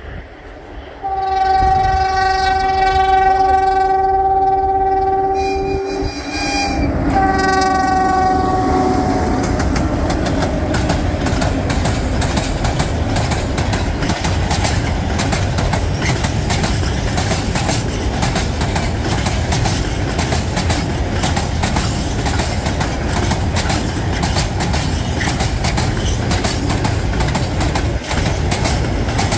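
Diesel locomotive of a freight train sounds its horn in one long blast and then a shorter second one, the pitch sagging slightly as the second blast ends. After that comes the steady rumble and wheel clatter of loaded open freight wagons rolling past close by.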